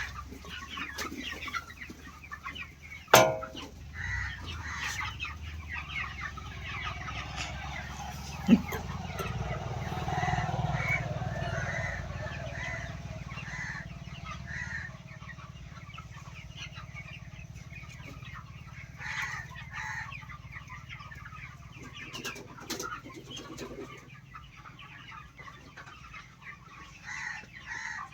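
A flock of farm chickens clucking and calling continuously, many short overlapping calls, with a sharp knock about three seconds in.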